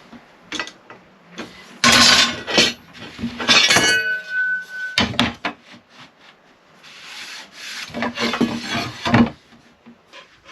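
Wooden slats being handled: a run of scraping and rubbing of wood on wood with knocks, and one short metallic ring about four seconds in.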